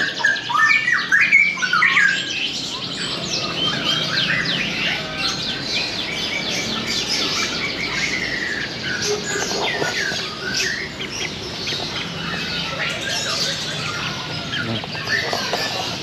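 Many caged small birds chirping and calling at once, a dense chatter of short high calls; one bird squawks loudly several times in the first two seconds.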